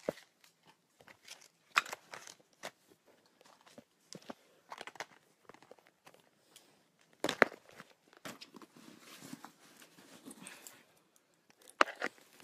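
Handling noise from a phone being carried while it records: scattered knocks and clicks, the loudest about two seconds in and again past seven seconds, then a stretch of rustling.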